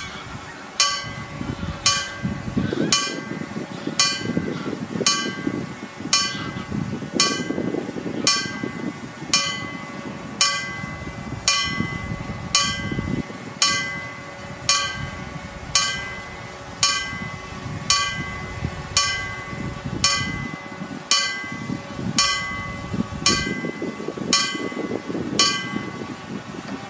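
Railway level crossing warning bell striking about once a second, each stroke a clang with a ringing tail: the crossing is activated, warning that a train is approaching. The ringing stops near the end.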